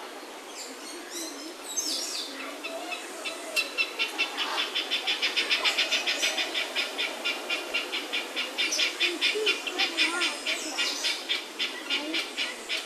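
An animal calling: a rapid, even run of short high chirps, about five a second, starting a few seconds in and stopping near the end.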